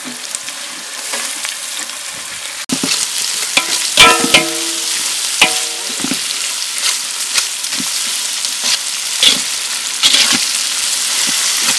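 Onions, green chillies, tomatoes and ginger-garlic paste sizzling in hot oil in a large metal pot, stirred with a long-handled perforated metal ladle that scrapes and knocks against the pot. The sizzle grows louder about a quarter of the way in, and two knocks about four and five and a half seconds in make the pot ring briefly.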